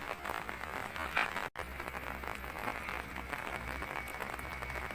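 Steady rain pattering, with a brief break about a second and a half in.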